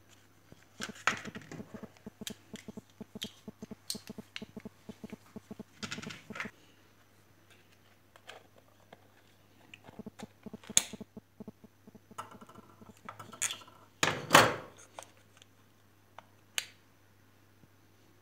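Clicks, taps and rattles from the plastic housing and coiled metal spring of a pull-cord hand chopper being worked on by hand. Its spring has come off its seat, so the cord no longer rewinds. A run of quick clicking fills the first few seconds, and a louder half-second clatter comes about two-thirds of the way through.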